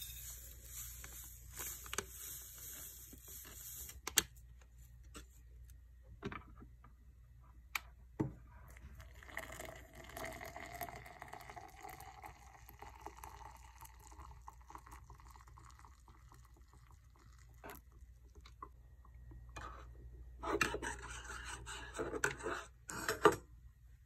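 A plastic sachet of instant milk tea powder crinkles as it is emptied into a stainless steel tumbler. Water is then poured in from a kettle spout, and its pitch rises steadily as the tumbler fills. A few seconds of scraping come near the end.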